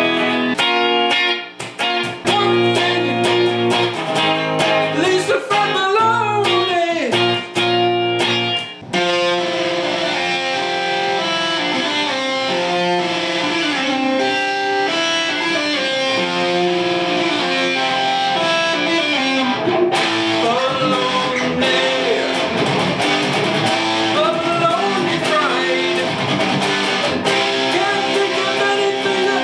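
Electric guitar being played: riffs and chords with string bends, turning denser and more continuous about nine seconds in.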